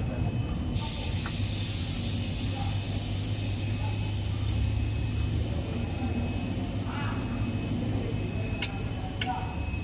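Aerosol contact cleaner spraying onto an electrical connector: a steady hiss that starts abruptly about a second in, over a low steady rumble. Two sharp clicks near the end.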